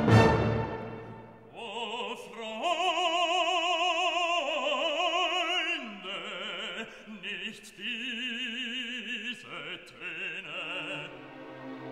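Background music: an operatic voice holding long notes with wide vibrato over orchestral accompaniment. It follows a loud chord that dies away in the first second.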